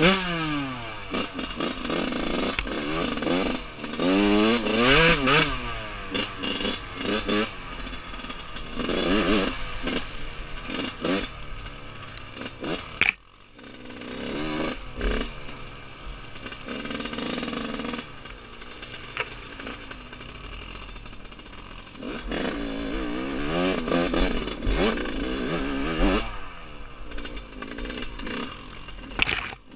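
Two-stroke engine of a 1999 Yamaha YZ125 dirt bike, heard from its on-board camera, revving up and down again and again as it is ridden along a rough trail. The sound drops out briefly about thirteen seconds in.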